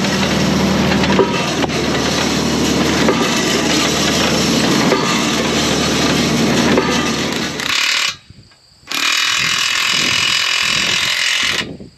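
Tractor engine running steadily under the hydraulic post driver, with a few faint knocks. It cuts off about eight seconds in, and after a short break a different steady hiss runs for about three seconds before stopping abruptly.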